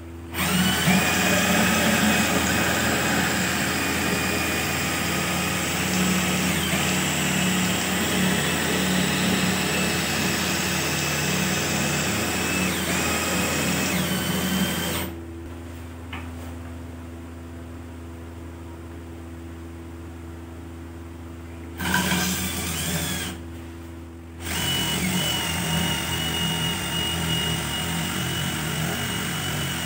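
Cordless drill spinning a square wooden strip through a sharpened nut in a wooden jig, the nut shaving it into a round dowel: a steady motor whine with cutting noise. It drops away about halfway through, returns briefly, and picks up again for the last few seconds.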